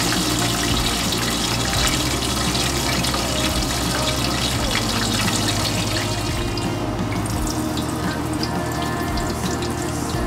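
Tempura batter frying in a pot of hot oil: a steady sizzle with crackles that become more noticeable in the second half.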